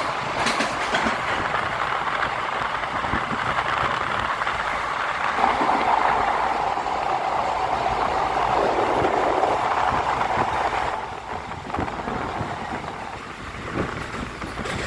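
Moving passenger train: steady running noise of the coaches and wheels on the track. It grows louder for a stretch in the middle, then drops off.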